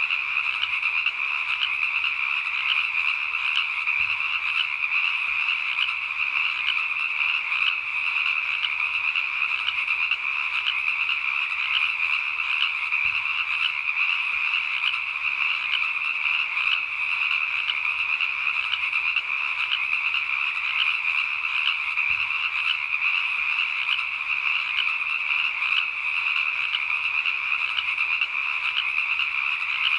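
A dense, steady chorus of calling animals, high-pitched and unbroken, with a fine rapid pulsing that never stops.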